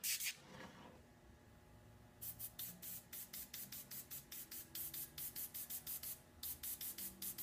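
Airbrush spraying paint in short hissing bursts, about three to four a second, as the trigger is pulsed for fine detail work. There is a single brief puff right at the start.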